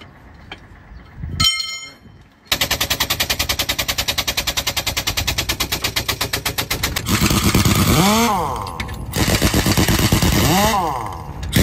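Large pneumatic impact wrench hammering on truck wheel nuts: a fast, even rattle starts about two and a half seconds in. After that come bursts in which the motor's pitch rises and falls as the trigger is squeezed and let go. A single metallic clink comes before the rattle.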